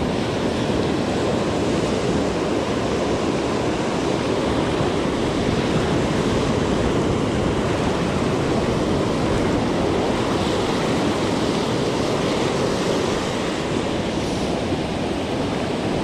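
Ocean surf breaking and washing up a sandy beach in a steady, continuous wash, with wind on the microphone.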